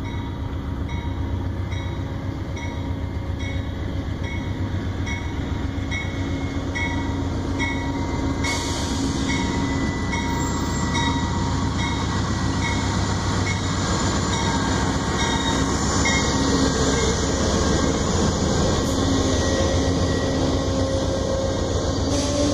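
Amtrak GE P42DC diesel locomotive running as it pulls in along the platform, with a bell ringing about once a second for the first dozen seconds. About eight seconds in, the noise of the passing train rises sharply as the locomotive goes by, and double-deck Superliner passenger cars then roll past.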